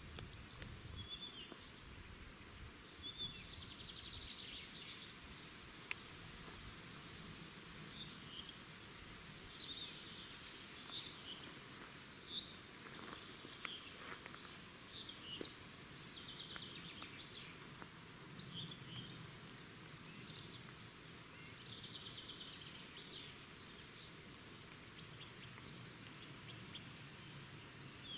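Forest songbirds singing, with repeated short high chirps and trills from several birds, over a faint low rumble.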